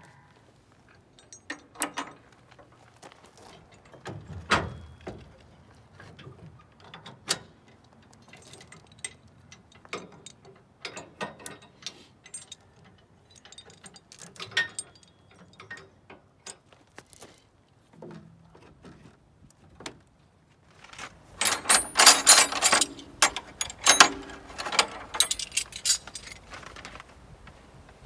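Scattered metal clicks, clanks and rattles from hand work on a trailer-mounted sawmill and its hitch, including safety chains being handled. Near the end comes a dense, louder run of rattling and clanking.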